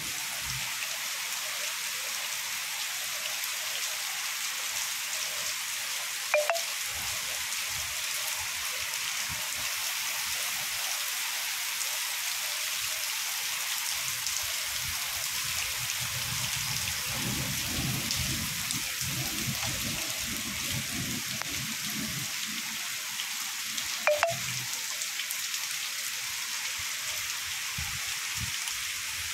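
Heavy rain falling steadily, an even dense hiss, with two sharp taps, one about six seconds in and one later on, and a low rumble for a few seconds in the middle.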